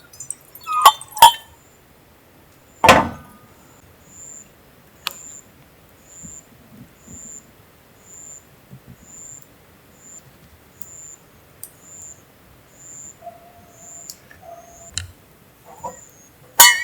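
Sharp clinks and knocks of dishes and utensils: two ringing clinks about a second in, a louder knock about three seconds in, and another near the end. Behind them, a short high chirp repeats evenly about twice a second.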